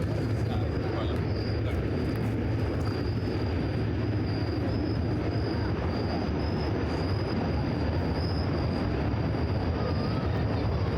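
Subway train rumbling steadily across a bridge: a deep, even rumble with a faint wavering high whine above it.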